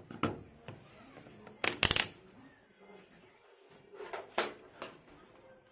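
Sharp plastic clicks and taps from handling a yellow digital multimeter and its test leads. One click comes just after the start, a quick cluster of the loudest clicks about one and a half to two seconds in, and a few more around four to five seconds in.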